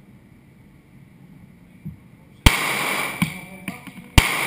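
Two handgun shots about a second and a half apart, the first about halfway through and the second near the end, each ringing on in the echo of an indoor concrete range.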